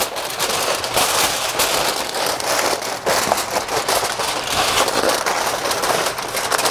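Aluminium foil crinkling and crackling continuously as it is pressed and crimped around the rim of a metal baking pan to seal it.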